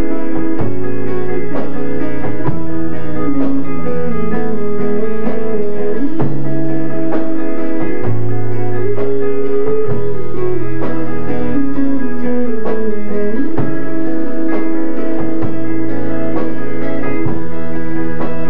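Live rock band playing: electric guitars, bass guitar and drum kit, with a bending lead guitar line over bass notes that change every second or two and regular drum hits.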